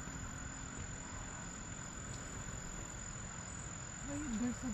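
A steady high-pitched trill of insects, with a low rumble underneath.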